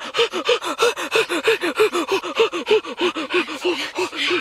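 Rapid, rhythmic panting gasps from a voice, about four to five a second, each a short cry that rises and falls in pitch.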